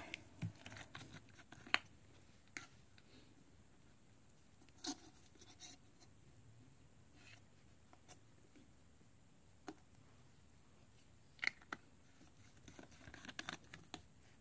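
Faint, scattered clicks and light scrapes of small phone parts and tools being handled on a work mat. A few sharper ticks stand out, with a quick flurry of them near the end.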